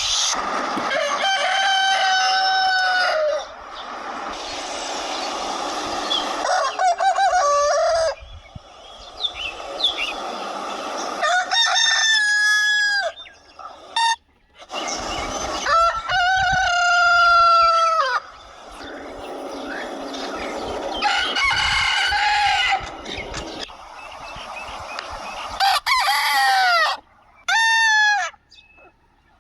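Desi roosters crowing, one crow after another, about seven in all. Each is a drawn-out call lasting a second or more.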